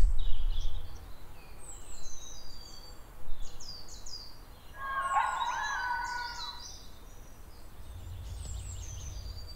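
Wild birds calling: many short, high, descending chirps, with a longer, lower call about five seconds in.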